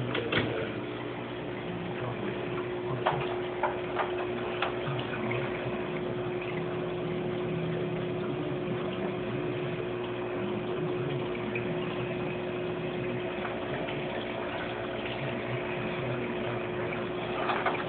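Aquarium water running steadily, as from the tank's filter, with a steady hum underneath. There are a few light clicks about three to five seconds in.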